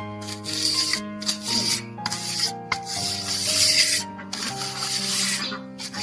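A trowel scraping over wet cement in repeated strokes, smoothing the surface to a finish, with background music of held notes underneath.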